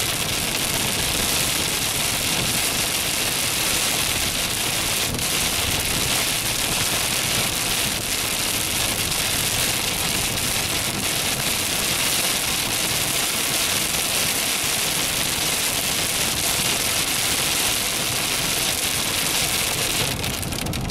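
Heavy rain on a moving car's windshield and roof, heard from inside the cabin: a steady hiss, with the car's wet-road noise underneath.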